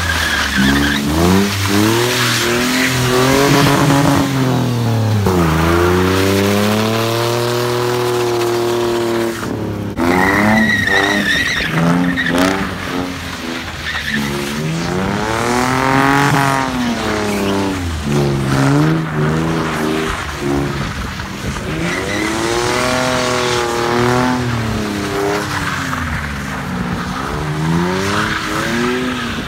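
Car drifting in tight circles: the engine revs climb and drop over and over as the throttle is worked, with tyres squealing and hissing on the pavement. The sound cuts off abruptly about ten seconds in and picks up again with the same revving.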